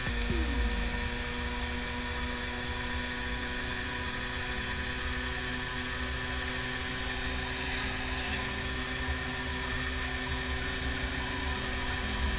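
Rieju RS3 NKD 50's small two-stroke engine running at a steady pitch while the moped cruises, with low wind and road rumble on the microphone.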